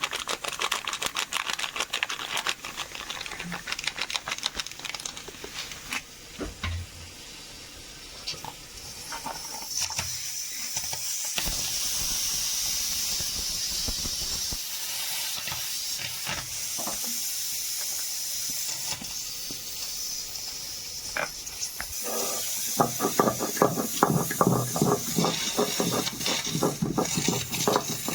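Food frying in hot oil in a pan: crackling at first, then a steady hiss, with quicker crackling and knocking near the end.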